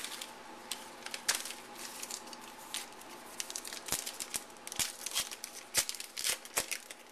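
Foil trading-card pack wrapper being torn open and crinkled by hand: a run of sharp crackles that gets busier about halfway through.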